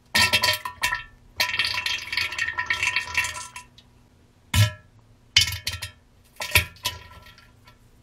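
Explosive diarrhea sounds: a few short bursts, then one long burst of about two seconds, then several more short bursts with pauses between them.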